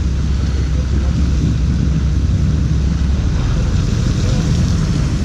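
A vehicle engine idling steadily: a low, even rumble with no revving.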